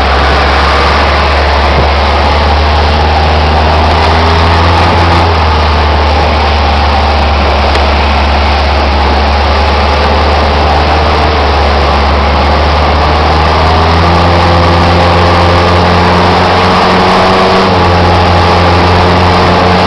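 Tourist boat's engine running loud and steady, its pitch shifting a little about five seconds in and again around fourteen seconds in.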